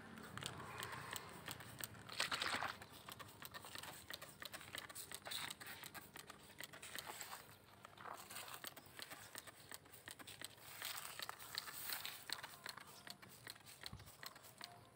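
Hand-held trigger spray bottle squeezed again and again, giving short spritzes onto grass, among faint rustling and crackling.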